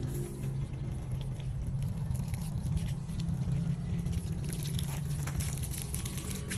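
Water running from a garden hose, splashing and pattering into a muddy soil trench, with more splashing in the second half. A steady low hum runs underneath.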